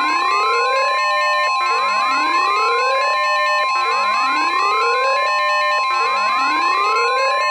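Simulated NOAA Weather Radio warning alarm: one long steady tone over a siren-like wail that rises and levels off about every 1.3 seconds, with synthesizer music. The alarm tone announces an emergency alert broadcast.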